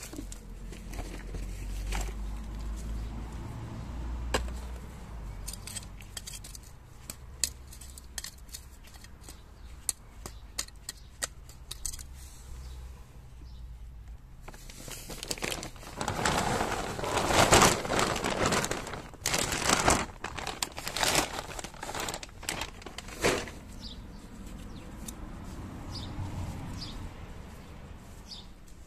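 Loose garden soil and clods being dropped and worked into a planting hole: crumbly rustling with many small knocks and crackles. In the middle comes a louder stretch of rustling and crunching as a heap of rotted compost or manure goes into the hole.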